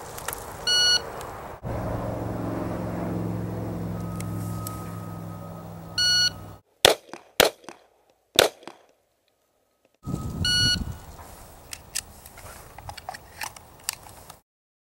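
Electronic shot-timer beeps, three in all, with three handgun shots close together about a second after the second beep. A steady low rumble lies under the first half, and small clicks follow the last beep.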